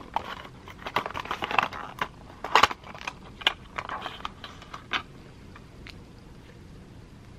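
A small paperboard box being opened and handled: a run of crisp clicks and rustles as the flap is pulled open and the contents slid out, dying down about five seconds in.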